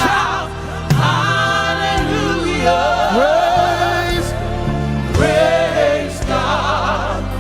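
Live gospel worship music: lead voice and choir singing a slow, wavering melody over a band with steady bass notes and a few sharp beats.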